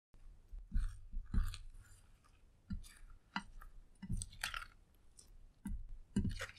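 Clear slime being pressed and folded by hand through crushed eyeshadow powder and glitter in a glass dish: irregular sticky squishes and crackling clicks, about a dozen.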